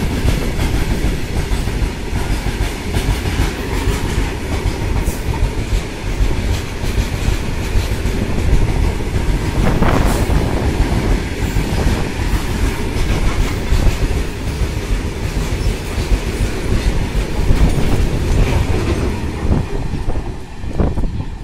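Loaded open freight wagons running past at speed: a loud rumble with rapid clickety-clack of steel wheels over rail joints, and a sharper clank about halfway through. The sound thins out near the end as the brake van passes.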